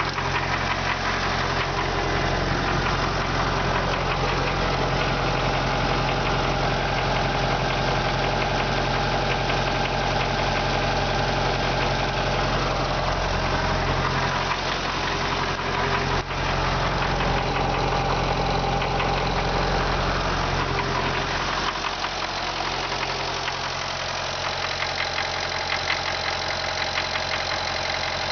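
MTZ tractor diesel engine running with a knock in it, the fault the owner is demonstrating. About three-quarters of the way through the deep hum drops and the knocking stands out as a regular ticking.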